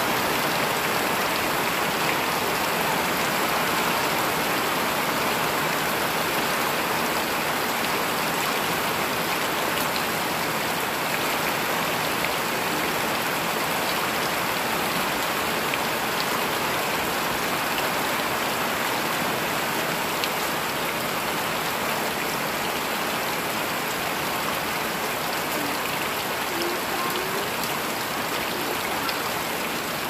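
Heavy rain falling steadily on dense leafy vegetation: an even, unbroken hiss of countless drops that eases slightly toward the end.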